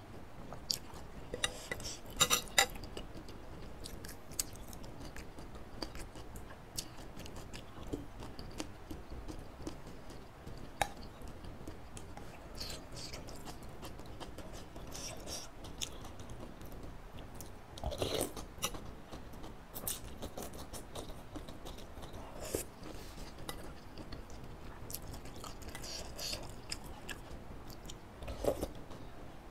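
Close-miked eating of instant laksa noodles in soup: chewing, with short clicks of a metal spoon and fork against the bowl. Louder bursts come a few times, one near the end as broth is sipped from a spoon.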